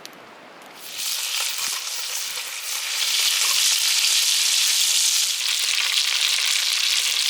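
Meat frying in a hot pan: a sizzle that starts about a second in and grows louder and denser about three seconds in, as if more meat is laid into the pan.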